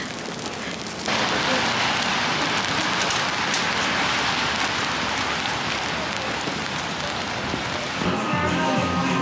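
Steady rain falling on a wet city street, an even hiss that gets louder about a second in. Music comes in near the end.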